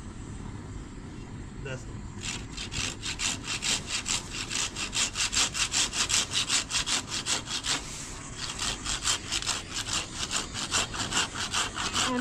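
Rapid, regular scraping strokes, about four a second, start about two seconds in and pause briefly near eight seconds: singed offal being scraped with a metal blade over a wire grate. Under them, a gas torch burns steadily.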